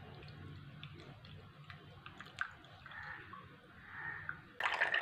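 Faint clinks of a bowl and strainer being handled, then near the end liquid starts pouring through a strainer into a cup with a steady splashing trickle.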